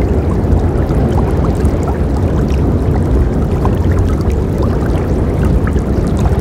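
Forest river flowing: a steady, deep rush of water with many small splashes and droplets scattered through it.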